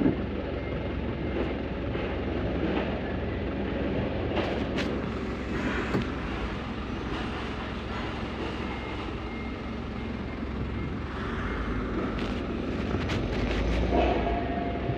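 Truck engine running, heard from inside the cab as a steady low rumble, with a few sharp knocks and rattles.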